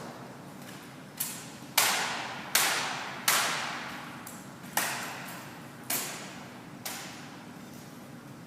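Drill rifles struck and slapped in a rifle drill routine: seven sharp, irregularly spaced impacts, each trailing off in a ringing echo.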